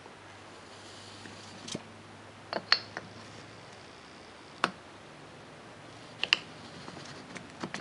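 Piston and connecting rod being worked by hand in a home-built steam engine cylinder's bore, giving a series of sharp metallic clicks and taps at irregular intervals.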